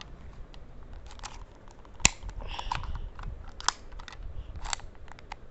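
Sharp plastic clicks and snaps from handling a spring airsoft pistol, a few separate clicks a second or so apart, with a brief rustle between them.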